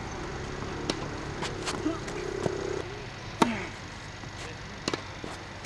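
Tennis rally: a racket striking the ball and the ball bouncing on the court, a string of sharp pops roughly half a second to a second apart, the loudest about three and a half seconds in.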